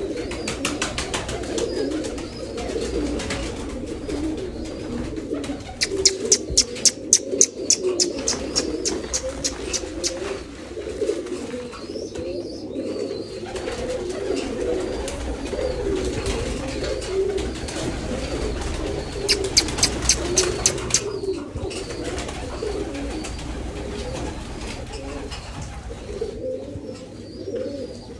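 A flock of domestic pigeons cooing steadily, many birds at once. Two bursts of rapid clattering come through, about six seconds in and again about twenty seconds in.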